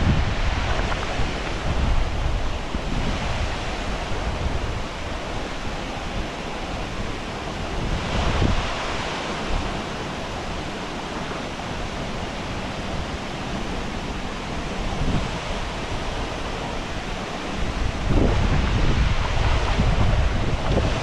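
Steady rush of river water pouring over a weir, with low rumbling wind buffeting on the microphone that grows louder near the end.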